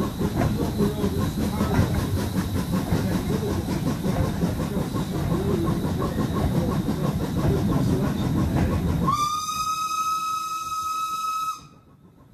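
Steam-hauled train running, heard from an open carriage window: a steady rumble with a quick rhythmic clatter. About nine seconds in, the locomotive's whistle sounds one steady note for about two and a half seconds and cuts off sharply.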